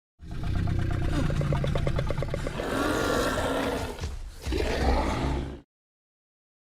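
Scorpius Rex creature sound effect: a long, rattling growl that swells into a roar, a brief break, then a second, shorter roar that cuts off abruptly.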